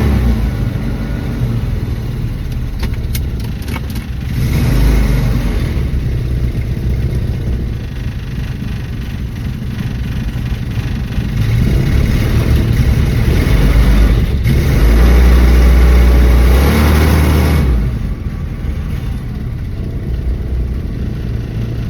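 1974 Dodge Dart engine running after a hard start following refuelling. It is revved briefly about four seconds in and again, louder, for several seconds from about twelve seconds in, then drops back to idle.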